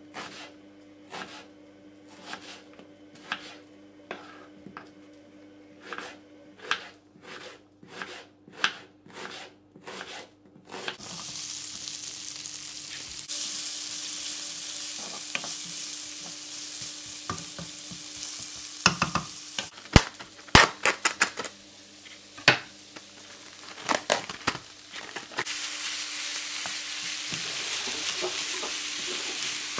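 Knife chopping an onion on a wooden board, a run of sharp regular strokes. About eleven seconds in it changes to onions sizzling in a hot frying pan, stirred with a wooden spoon, with a cluster of knocks of the spoon against the pan in the middle; the sizzling carries on as minced beef goes in.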